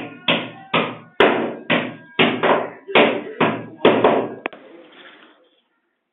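Hammer blows, about two a second, each a sharp hit with a short decay and faint ringing, about ten strikes that stop about four and a half seconds in.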